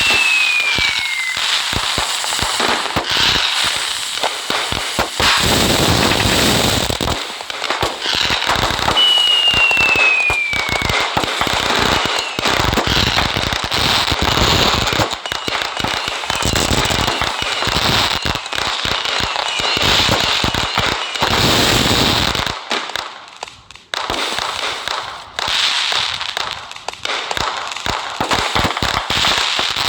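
Fireworks and firecrackers crackling and popping without a break. A whistle falls in pitch at the start and again about nine seconds in. The crackle drops away briefly about three-quarters of the way through.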